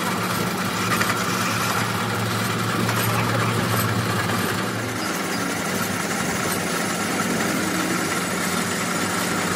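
Lathe running steadily while a boring bar line-bores the camshaft bores of a Suzuki three-cylinder cylinder head, a steady machine hum. A lower part of the hum drops away about halfway through.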